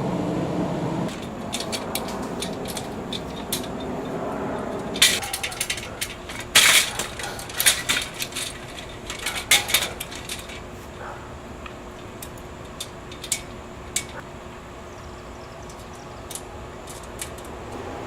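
Metal parts of a tool stand clinking and knocking as they are fitted together, with a run of sharp clatters about five to ten seconds in and scattered lighter ticks after.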